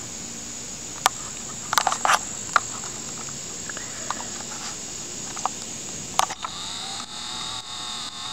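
Steady high-pitched insect drone, with clicks and knocks from the camera being handled. From about two-thirds of the way in, a wavering motor whine joins, which fits a camcorder's zoom motor.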